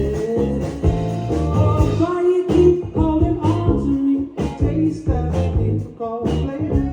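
Live band playing a song, with a singer's voice over a steady drum beat and bass.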